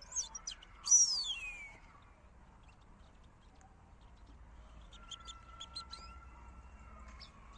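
A bird gives one loud call sliding down in pitch about a second in, among a few faint clicks. From about five seconds comes a run of faint, short high chirps.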